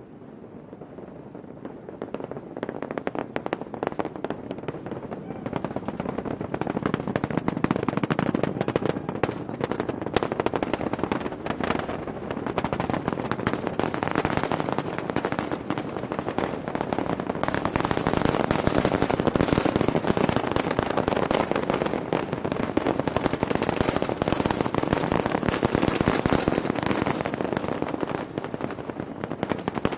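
Starship's Super Heavy booster engines heard from afar during launch: a rumble thick with sharp crackling that builds over the first several seconds, then stays loud.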